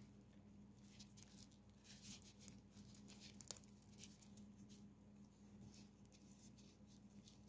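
Near silence: a few faint ticks and light scratchy rustles from gloved fingers handling a small filament nib for a plating pen, over a low steady hum. The ticks fall mostly in the first half.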